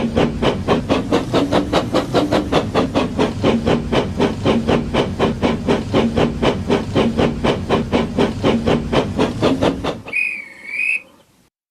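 Steam locomotive chuffing in a steady rhythm of about four to five puffs a second. About ten seconds in it gives way to a short wavering whistle, which cuts off suddenly.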